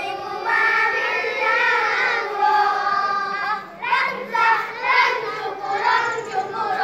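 A group of boys singing together in unison, with long held notes in the first half and quicker syllables in the second.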